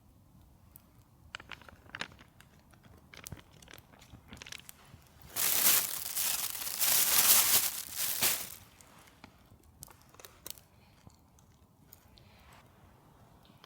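Crinkling and rustling for about three seconds midway, among scattered light clicks and crackles.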